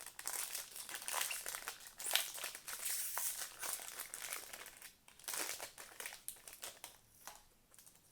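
Plastic packaging crinkling and rustling in irregular bursts as a trading-card blaster box is unwrapped and opened, tailing off near the end.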